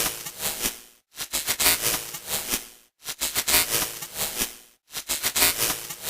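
Broken-TV static sound effect: a fluctuating hiss of noise that repeats about every two seconds, each pass fading out and briefly cutting to silence before the next one, three times.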